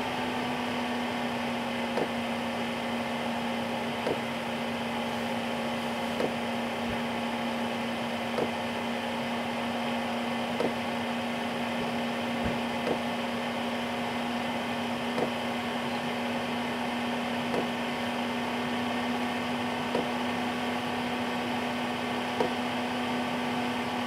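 Chinese diesel heater in its shutdown cycle: the combustion air fan runs steadily with a steady hum, and the fuel dosing pump ticks about once every two seconds as the fuel is backed right off.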